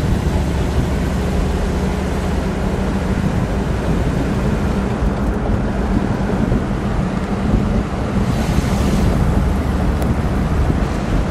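Inside a 1959 Edsel Corsair convertible driving with its soft top up: a steady low engine drone mixed with road and wind noise. A brief swell of hiss comes about eight seconds in.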